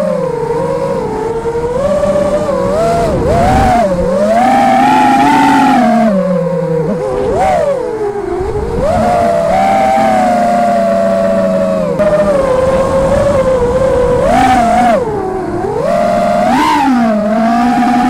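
Quadcopter drone's electric motors and propellers whining, heard from a camera on the drone itself, the pitch rising and falling continually with the throttle as it flies.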